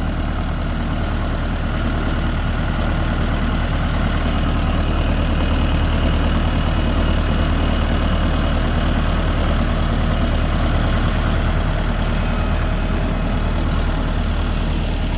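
Engine of a slow-moving ride-on vehicle running steadily at low revs, heard from on board.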